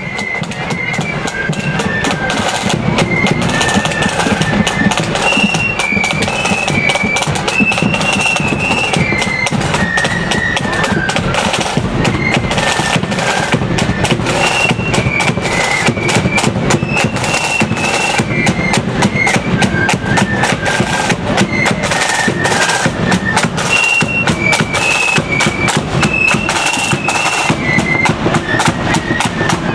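Marching flute band playing a march: a high flute melody over rapid snare-drum rattling and a steady bass-drum beat.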